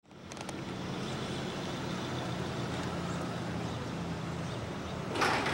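A steady low motor hum, with a brief louder rush of noise about five seconds in.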